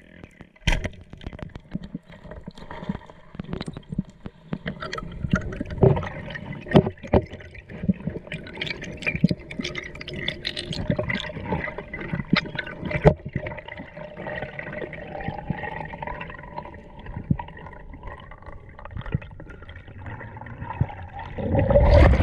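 Water sloshing and gurgling around the microphone, broken by many small knocks and clicks, with a louder surge of noise near the end.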